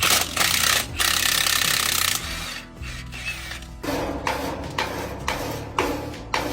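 A hiss for about a second, then, from about four seconds in, a run of hammer blows on metal, about two a second, each with a short ring: pounding on an irrigation tower's drive-shaft knuckle to free it. Background music underneath.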